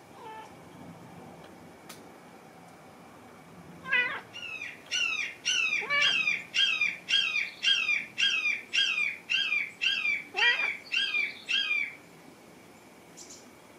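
A domestic cat calling in a rapid series of short meows, a little over two a second, each dropping in pitch. A few rising calls are mixed in. The calls start about four seconds in and stop near the end.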